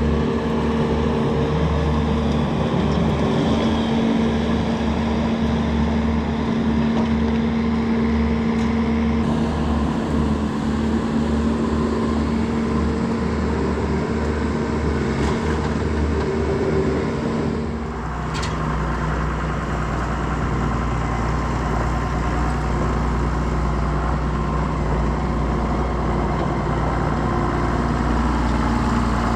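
Tractor engine running steadily. About two-thirds of the way through, the sound dips briefly and changes to a lower, deeper engine rumble.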